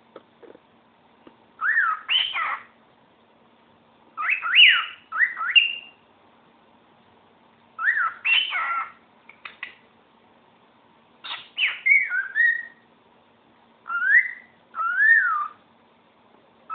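Cockatiel whistling its song in about five short phrases of rising and falling notes, with pauses of a second or two between them.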